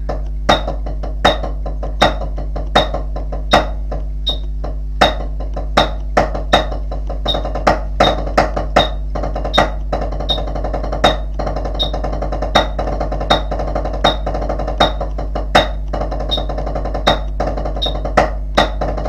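Rudimental snare drum solo played at 80 beats a minute, with strokes, grace notes and rolls, over a click that sounds on every beat, about four every three seconds. The rolls get denser and more continuous in the second half.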